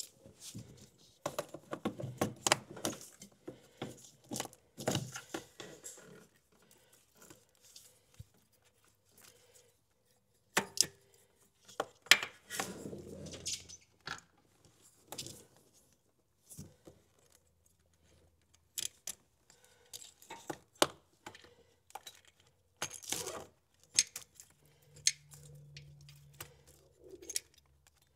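Intermittent clicks and light metallic clinks and rattles of small parts and bolts being handled, in scattered clusters with a pause of a few seconds about a third of the way in.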